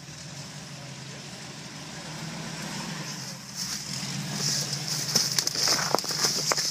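A Blazer's 454 big-block V8 runs at low revs while the truck crawls over boulders. From about halfway a hiss and a run of sharp knocks and scrapes join in as the truck tips over onto its side against the rocks.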